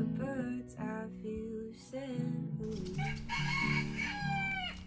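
A rooster crows once, a long call starting a little under three seconds in and falling away at its end, over soft acoustic guitar music.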